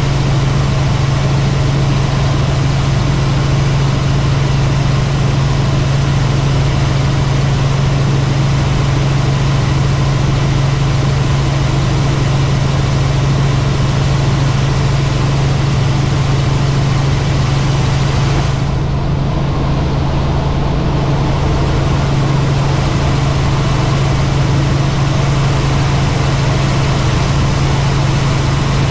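Helicopter in flight: a loud, steady drone of engine and rotor with a strong low hum under an even hiss. The higher hiss dips briefly about two-thirds of the way through.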